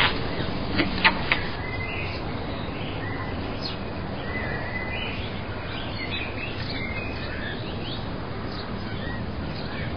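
Outdoor nature ambience: birds chirping over a steady background hiss, with a few short sharp calls in the first second and a half.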